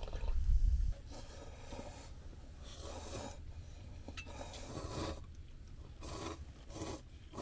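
A low rumble in the first second, then a series of about five rough rubbing or scraping strokes, each under a second long, spread a second or so apart.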